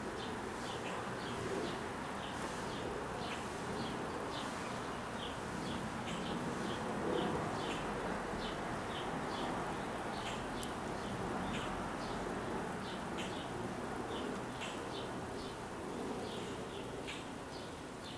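Small birds chirping, short high chirps a few times a second, over a steady rushing noise.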